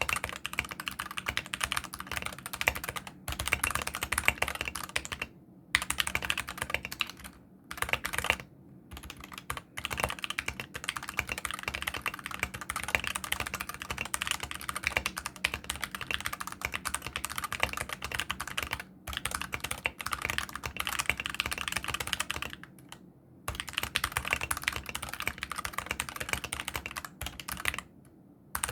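Steady fast typing on a mechanical keyboard with unlubricated (dry) Gateron optical brown switches that have no tactile bump, so they press like linear red switches. Continuous keystroke clatter, broken by a few brief pauses.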